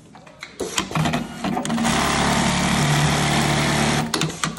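QURIS automatic label-sewing machine stitching on a large label. It starts with a few clicks about half a second in and runs steadily at speed with a low hum. It stops shortly before the end with a few more clicks.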